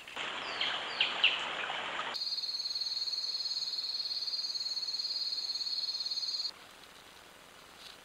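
For about the first two seconds, rustling in dry leaf litter with a few short downward-sweeping chirps, the loudest about a second in. An abrupt switch follows to an insect's steady, high-pitched, finely pulsing night trill, which cuts off sharply after about four seconds and leaves a quiet forest background.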